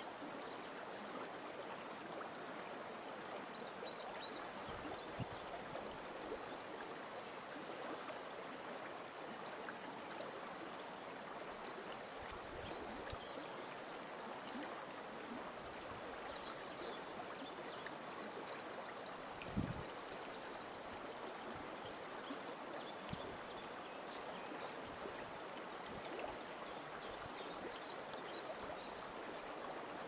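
Upper Volga running fast over a riffle: a steady rushing of water. A bird twitters high above it, briefly near the start and in a long series through the middle. A few brief low thumps come and go, the loudest about two-thirds of the way in.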